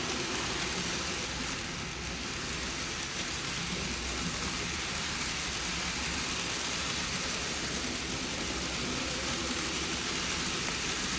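N-gauge model train running on the layout: a steady rumble and hiss of small wheels and motor on the track, with no breaks.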